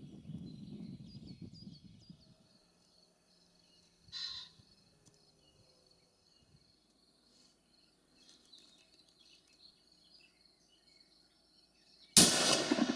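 A single loud rifle shot near the end, its report rolling away over the following second. Before it, faint birdsong and one short call about four seconds in.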